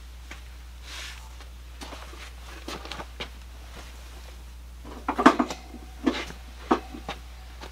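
Rummaging through a bin of housewares: scattered soft knocks and rustles, then a cluster of sharper clatters about five seconds in as items knock together, and a couple of single knocks after.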